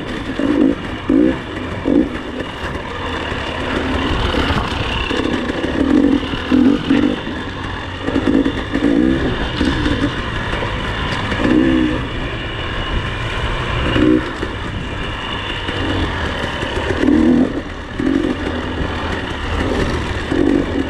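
Dirt bike engine running under way, the throttle opened and eased off in short surges every second or so.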